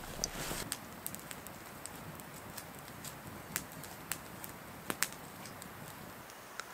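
Small campfire, just lit from a dry-grass tinder bundle and twigs, crackling with irregular sharp pops; a short rush of flame noise in the first second.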